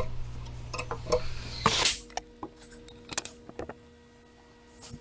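Metal hand tool clinking and tapping on the brake line fittings at the ABS module as the lines are loosened, with a brief louder scrape just under two seconds in, then a few lighter clicks.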